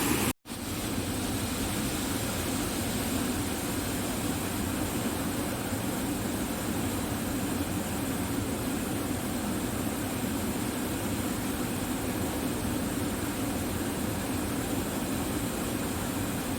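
Steady rushing noise of flowing water, unbroken apart from a momentary dropout about half a second in.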